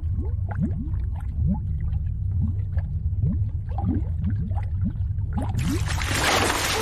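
Animated underwater sound effect: a deep steady rumble with many bubbles rising and gurgling. About five and a half seconds in, a loud rush of water cuts in as a figure surges up out of the liquid.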